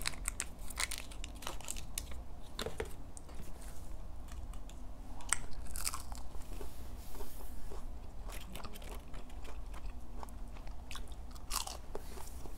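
Close-miked biting and chewing of a McDonald's chicken nugget: irregular crisp crunches and wet mouth clicks. At the start, light crackles from the lid of a plastic dipping-sauce tub being peeled off.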